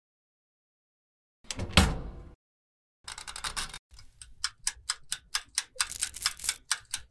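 A toaster oven's door shuts with a single clunk about a second and a half in. From about three seconds in, its mechanical timer dial clicks in a quick, uneven run of ticks as it is wound.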